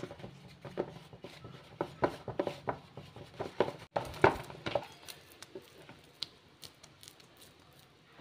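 A hand mixing and kneading damp wheat flour into a chapati-style dough in a plastic bowl: soft, irregular squishing and patting taps, thinning out to a few faint ticks in the second half.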